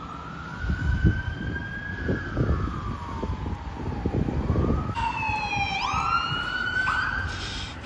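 Fire engine siren on a slow wail, rising and falling, with engine rumble beneath. About five seconds in, it cuts abruptly to another emergency siren wailing, which dips and then climbs again.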